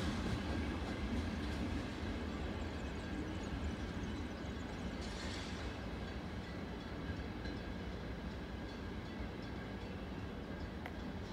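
A Frecciabianca ETR 460-family electric train pulling away and receding, its low rumble fading over the first couple of seconds and then holding steady, with a brief hiss about five seconds in.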